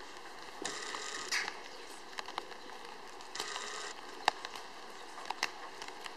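Bonfire crackling with scattered sharp pops, and two brief hissing rushes.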